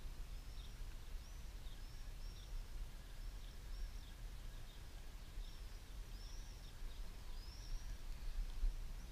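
Small birds chirping repeatedly in short, high, arched notes, over a low rumble.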